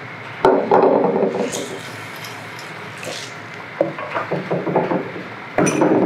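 Hard objects knocking and scraping against wood, with a sudden loud clatter about half a second in, a few lighter knocks later, and another loud clatter near the end.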